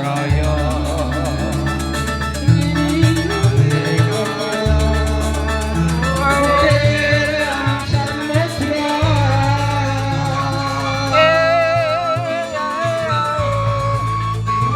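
Music: a singer holding wavering, vibrato notes over a band with a bass line that changes note every couple of seconds.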